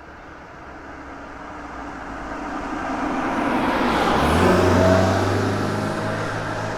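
A car driving past: its engine and tyre noise grow steadily louder as it approaches, peak about five seconds in, and the engine pitch drops as it passes, then it fades away.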